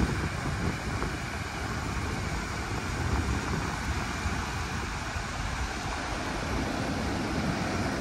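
Surf washing on a sandy beach, with wind buffeting the microphone in uneven gusts.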